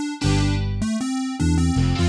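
Drumless backing track of a Thai pop song: sustained keyboard chords over a bass line, with the drum part cut out. About one and a half seconds in, the bass starts moving in quicker notes.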